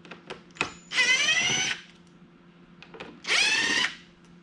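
Power drill-driver run in two short bursts, its pitch rising as the motor spins up, backing out the bolts that hold a dirt bike's radiator shroud. A few light clicks come just before the first run.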